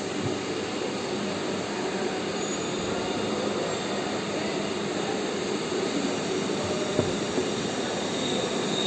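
Metal lathe running with a steady mechanical hum and whir, and a single short click about seven seconds in.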